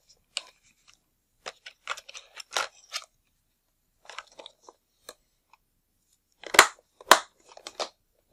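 Small hand tools clicking and clattering as they are picked through for a pair of tweezers, in irregular short knocks with two sharper clacks about two-thirds of the way in.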